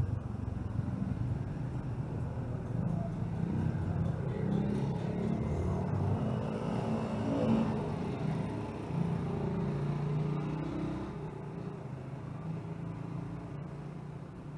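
Road traffic: vehicle engines running and passing, a low steady rumble that grows around the middle and fades over the last few seconds.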